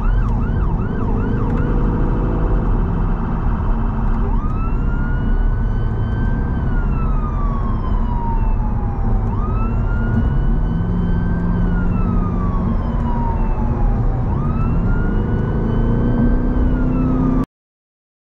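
Emergency vehicle's two-tone electronic siren heard from inside the cab over steady road and engine noise on the motorway. It starts in a fast yelp, then switches to a slow wail that rises and falls about every five seconds. Near the end everything cuts off abruptly.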